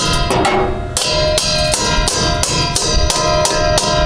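Background music with a steady drum beat, about four beats a second, over held ringing notes.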